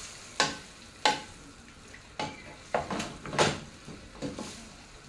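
A cooking utensil stirring creamed chicken in a frying pan, knocking and scraping against the pan about eight times at an uneven pace, over a low sizzle from the pan.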